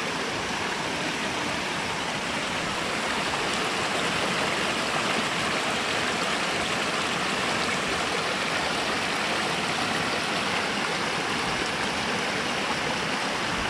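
Flowing water rushing steadily: an even, unbroken hiss.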